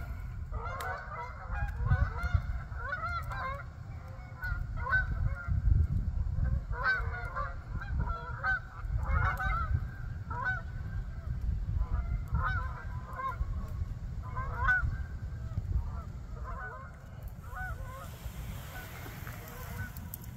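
A flock of geese honking, many short calls overlapping one another and thinning out near the end, with wind rumbling on the microphone.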